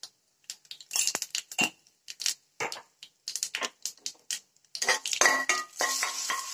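A small steel spoon clinking sharply and repeatedly against a glass spice jar and a metal kadai as asafoetida is tapped into the tempering. About five seconds in the clatter gets denser, over a high sizzle of the hot oil with mustard seeds, cumin and dried chillies.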